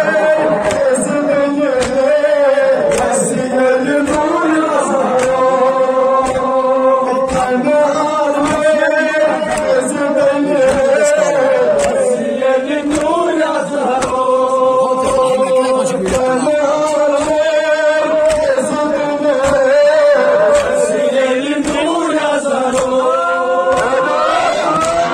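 Men chanting a Kashmiri noha, a Shia mourning lament, through a microphone and horn loudspeakers. Sharp strikes about twice a second keep the beat: mourners beating their chests in matam.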